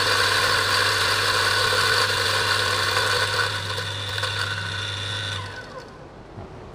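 Mazzer Super Jolly Electronic flat-burr coffee grinder grinding beans at its coarsest setting: a steady motor hum under the grinding noise. About five and a half seconds in the motor cuts out and winds down.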